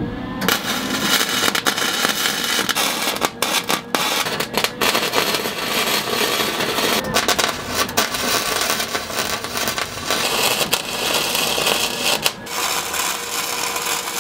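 Electric arc welding: the arc crackling and sizzling in runs of a few seconds, broken by several short pauses as tack welds are laid on the window frame.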